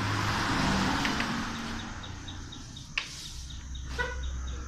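Plastic bottle-cap checkers pieces clicking down on a wooden board, twice, about a second apart. Before them a rushing noise fades over the first two seconds, and a faint high chirp repeats about three times a second underneath.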